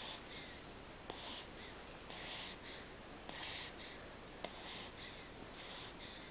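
Newborn baby's soft breaths, about one a second, while he sucks on his mittened fist, with a few faint clicks from the sucking.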